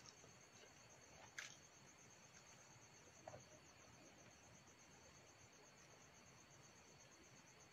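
Near silence with crickets chirping faintly in a steady pulsing trill. Two faint clicks come in the first few seconds.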